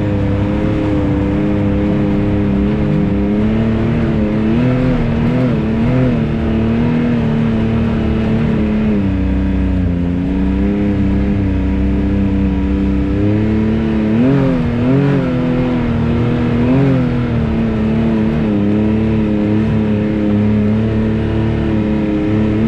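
Can-Am Maverick X3 side-by-side's turbocharged three-cylinder engine running steadily under the rider, with a few brief rises and dips in pitch from small throttle changes.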